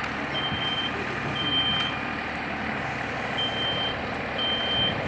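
Smoke detector sounding a high, steady beep in sets of three, each beep about half a second long, with a pause between sets. It has been set off by smoke from the kitchen fire. A steady background noise runs underneath.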